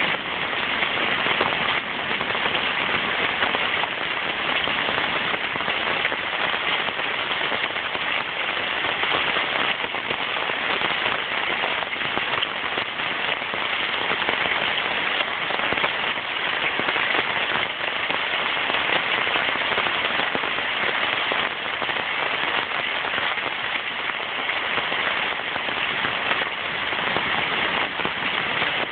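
Heavy rain falling steadily: a dense, even hiss with a fine crackle of individual drops.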